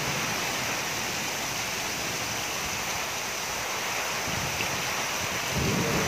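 Heavy downpour: a steady rushing hiss of rain pouring onto the ground and roofs, with no break or single loud event.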